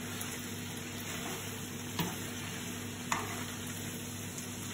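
Linguine being tossed and stirred with metal tongs in a frying pan, over a steady low sizzle. The tongs click against the pan twice, about two and three seconds in.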